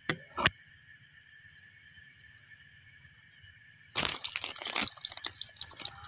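A steady chorus of night insects, with a couple of light twig clicks near the start. About four seconds in, a rustle of leaves as a small roosting songbird is grabbed by hand, followed by a fast run of sharp, high chirps, about five a second, from the caught bird in distress.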